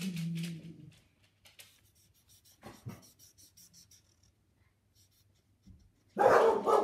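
Felt-tip marker scratching on paper in quick, short back-and-forth strokes as an area is coloured in, fading to quiet partway through. About six seconds in, a dog barks loudly.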